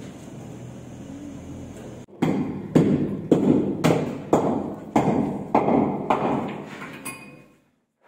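A run of regular knocks, about two a second, each with a short ringing tail, stopping about seven seconds in.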